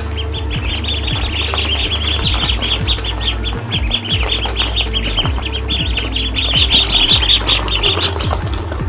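A group of ducklings peeping, many rapid high chirps overlapping, stopping shortly before the end. Background music with a deep bass and a beat plays underneath.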